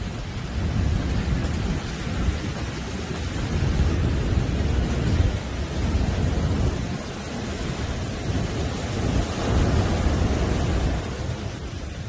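Heavy surf breaking on a sandy beach: a continuous deep rumble of churning white water that swells and eases as each wave comes in.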